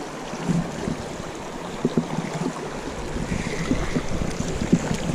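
Shallow mountain stream running over rocks, a steady rush of water with scattered short knocks through it.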